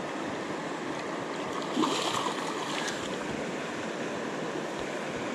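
Steady rush of a flowing river, with one brief louder splash-like sound about two seconds in.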